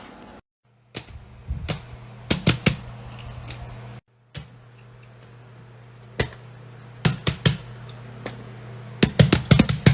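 Sharp clicks and taps from fidget toys being handled, in small scattered clusters with a rapid run of clicks near the end, over a steady low hum. The sound cuts out briefly twice.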